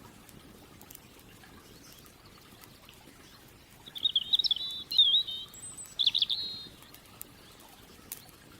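A songbird sings a warbling phrase of quick chirps about four seconds in, lasting roughly three seconds. A campfire crackles faintly now and then.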